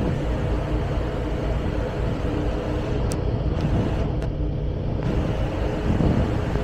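Passenger ferry's engines running steadily under way, a low drone with an even hiss of passing water and air on the open deck.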